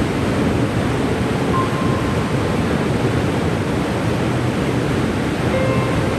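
Cane River Falls' waterfall rushing steadily, with a faint brief pitched tone near the end.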